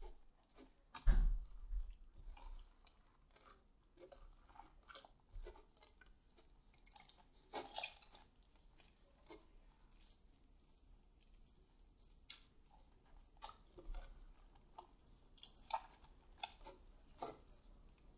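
Slime being squeezed and kneaded by hand: scattered wet squishes with small clicks and pops, irregular and quiet, with a louder soft knock about a second in.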